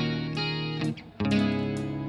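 Live band guitars, acoustic and electric, playing sustained strummed chords: one chord rings and is cut off about a second in, and after a brief gap a new chord is struck and left ringing, slowly fading.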